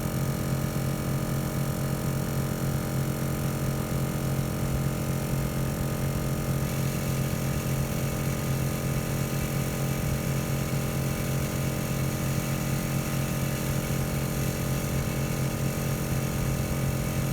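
Smittybilt 2781 portable 12-volt air compressor running steadily under load, pumping air into a 40-inch tire, with an even motor-and-piston hum.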